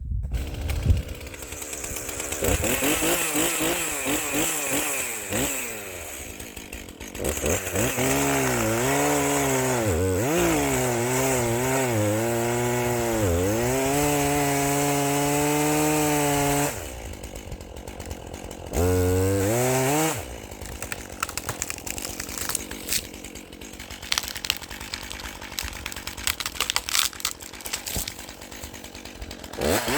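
Chainsaw cutting firewood, revving high for several seconds at a time with its pitch dipping as the chain loads up in the cut. In the last third it runs lower and quieter, with scattered knocks.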